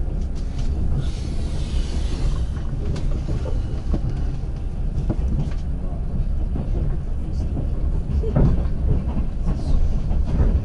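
Passenger train rolling out of a station, heard from inside the carriage: a steady low rumble with scattered wheel clicks and knocks over rail joints and points, a brief hiss about a second in, and a louder knock about eight seconds in.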